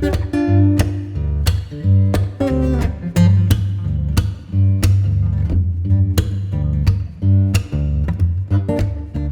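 Background music: guitar-led instrumental with plucked and strummed guitar over a steady bass and beat.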